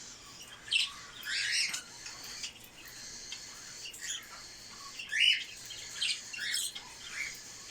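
Budgerigars chirping and squawking, several short scattered calls over a faint, steady background twitter of the flock; the loudest calls come about a second and a half in and again about five seconds in.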